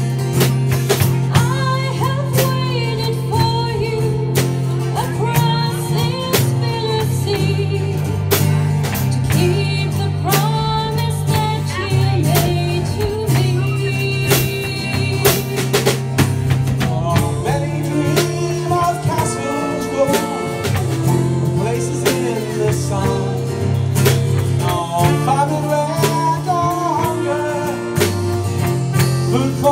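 Live band playing a song on drum kit with rim clicks, acoustic guitar, keyboard and saxophone, with a wavering melody line over a steady bass line.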